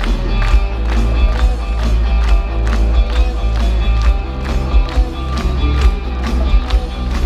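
Hard rock band playing live through a festival PA: electric guitars over heavy bass and a steady drum beat of about two hits a second.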